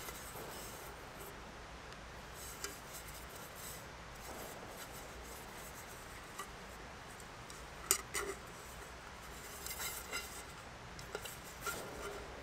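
Faint metallic rubbing and clicking of a titanium fry pan being handled and its folding wire handle worked, with a few sharper clinks, the loudest about eight seconds in.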